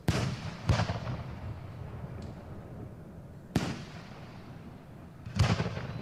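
Fireworks exploding: four loud bangs, two in quick succession at the start, one in the middle and one near the end, each trailing off in a rumbling echo.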